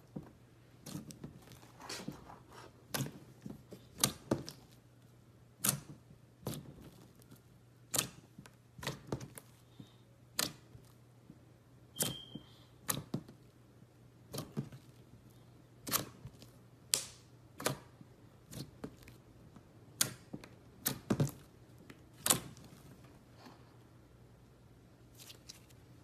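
Clear slime being kneaded, pressed and folded by hand, giving off sharp wet pops and clicks at an irregular pace of about one or two a second.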